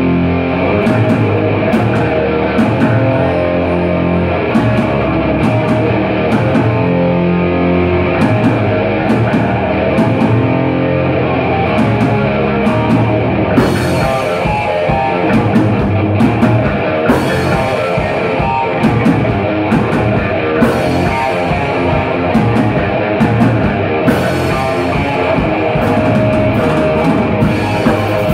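Live rock band playing an instrumental passage: distorted electric guitar through a Randall amplifier, electric bass and a drum kit. From about halfway, cymbal crashes come in roughly every three and a half seconds.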